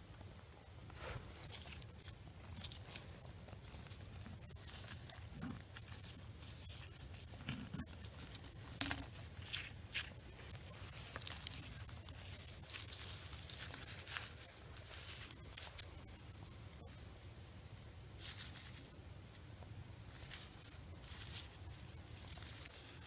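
Gloved hands scraping and raking through loose, gravelly dump soil to free buried glass bottles: irregular scratching, crunching rustles, with a steady low rumble underneath.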